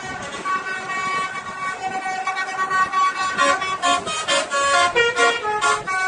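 Bus 'telolet' horn, a multi-tone horn, playing a jingly melody: held notes at first, then a run of short quick notes in the second half.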